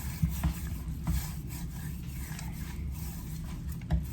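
Scattered light clicks and rubbing from hands handling the seasoning shaker and raw ribs, over a steady low hum.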